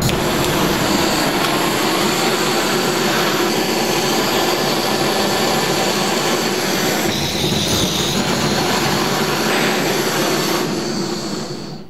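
Handheld gas blowtorch flame burning with a steady hiss, fading out near the end, as it heats a nylon-insert nut to melt the nylon ring.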